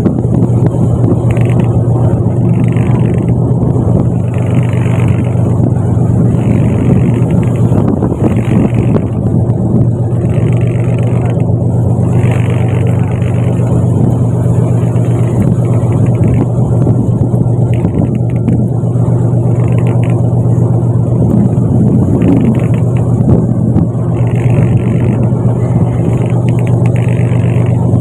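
Fishing boat's engine running with a steady, loud drone, with a softer higher pulse about every two seconds.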